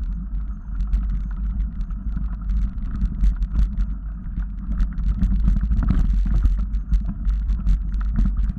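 Mountain bike riding over rocky singletrack, heard through a helmet-mounted action camera: a steady low rumble of wind on the microphone with many sharp clicks and rattles from the bike jolting over rocks.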